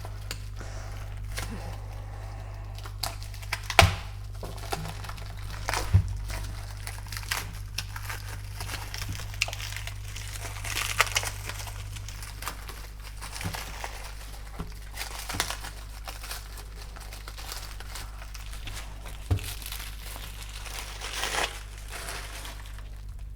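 Plastic packaging crinkling and tearing as it is handled and opened, with scattered crackles and a few sharper clicks, over a steady low hum.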